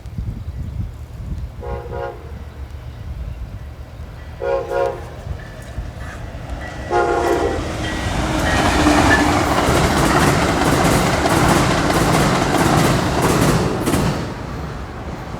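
Passenger train horn sounding three short blasts, then the push-pull passenger train passing close by, a loud rush of wheel and rail noise that fades off near the end.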